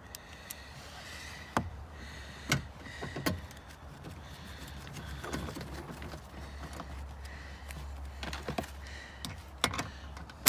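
Scattered metal clicks and knocks of a hand socket wrench being fitted and turned on a 10 mm bolt, tightening down the hybrid battery, with a faint low hum underneath.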